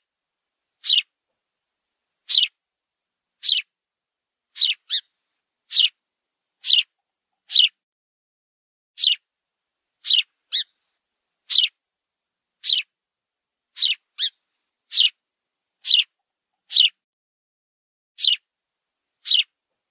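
House sparrow chicks calling: short, high chirps repeated about once a second, some coming in quick pairs.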